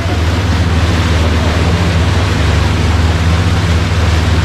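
Boat engine running at a steady pitch, a constant low drone, with a steady rush of wind and water over it.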